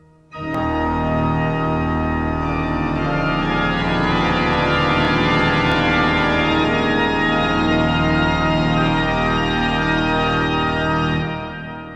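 Background music of long held chords, which sound like an organ. It starts about half a second in and fades out near the end.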